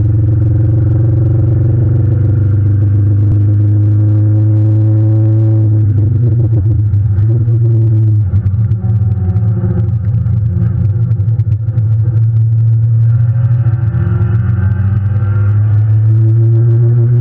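Ford Shelby GT350R's 5.2-litre flat-plane-crank V8 heard from inside the cabin under hard track driving. Its pitch climbs slowly, falls away about six seconds in, stays lower for a few seconds, then climbs again in the last few seconds.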